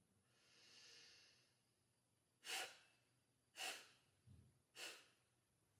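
A woman's soft inhale through the nose, then three short, sharp, forceful exhales through the nostrils about a second apart: Kapalbhati breathing, each exhale driven by snapping the belly in.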